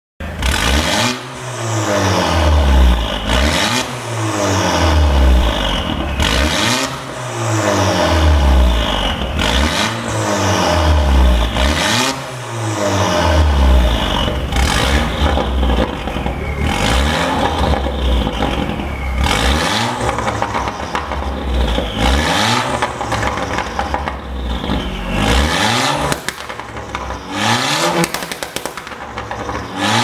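2011 Audi A5 2.0 TFSI's turbocharged four-cylinder engine revved over and over at standstill, each rev rising and then falling away. The exhaust pops and crackles as the revs drop, from a pops-and-bangs ('popcorn') tune.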